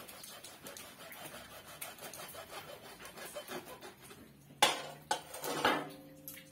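A hacksaw rasping in short strokes as it cuts into a small plastic plant pot. About two-thirds of the way through come a few sharp knocks as the metal saw is put down, and a faint ringing follows.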